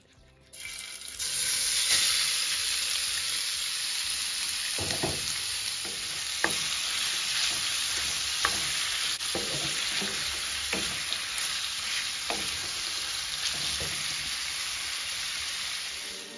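Marinated chicken pieces sizzling in hot oil in a frying pan, the hiss starting about half a second in as they hit the pan. The chicken is stirred with a wooden spoon, with several short knocks of the spoon against the pan.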